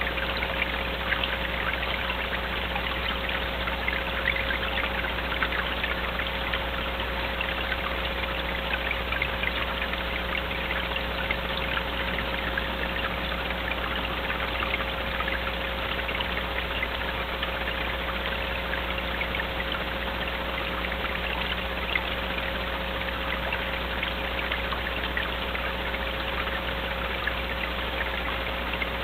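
Steady crackly hiss with a constant low hum and a faint steady tone underneath, unchanging throughout, with no distinct animal calls.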